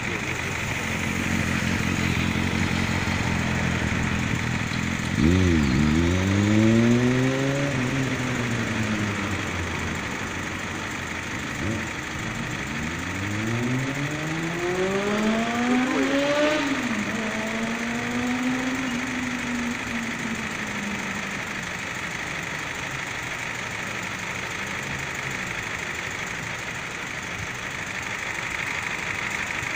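Road traffic: a vehicle engine climbs in pitch about five seconds in, and another rises, peaks at about sixteen seconds and falls away as it passes. A steady hiss underlies both.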